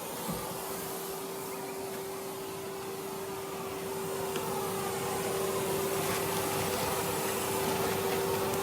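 Vacuum cleaner running with a steady hum, getting a little louder about four seconds in.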